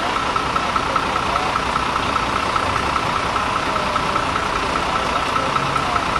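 A vehicle engine idling steadily, with a steady high-pitched tone running over it.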